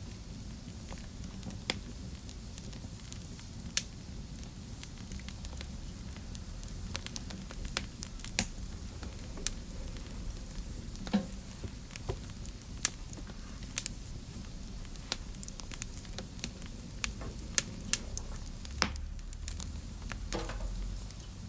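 Wood fire burning in a fireplace: a steady low rumble of flame with frequent sharp, irregular crackles and pops, and a brief hiss from the burning wood twice.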